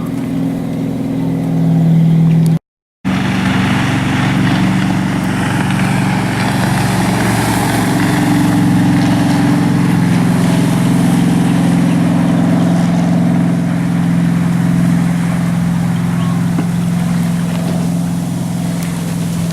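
Ski boat engine running at speed as the boat tows a slalom skier past, with the hiss of its wake and spray, loudest about halfway through. It drops out to silence for a moment about three seconds in.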